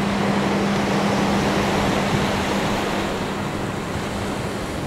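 Sea waves washing onto a shingle beach: a steady rush of surf. A steady low hum runs underneath and fades out about three and a half seconds in.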